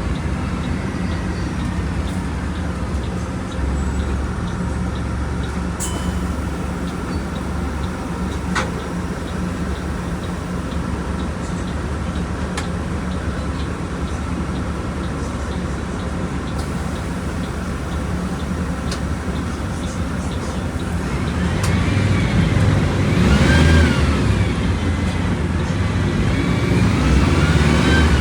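Volkswagen Volksbus 17.230 Euro 6 bus engine running steadily under way, then near the end rising and falling in pitch twice as it revs up and eases off.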